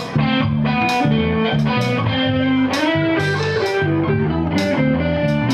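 Electric guitar and bass guitar playing an instrumental passage: the guitar picks a melodic run of single notes over steady bass notes.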